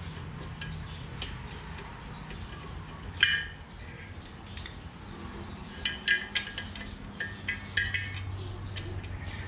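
Metallic clicks and clinks of a hand wrench working the cylinder head nuts on a motorcycle engine as the head is tightened down: one sharp clink about three seconds in, then a run of irregular clicks over the last few seconds.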